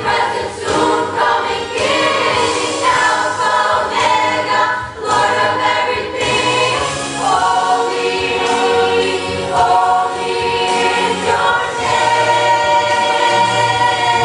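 Church choir singing a worship song together, holding long, level notes in the second half.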